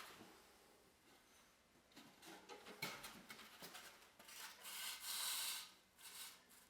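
Quiet scraping and rubbing strokes: several short ones, then a longer, louder one about four and a half seconds in, and one more short one near the end.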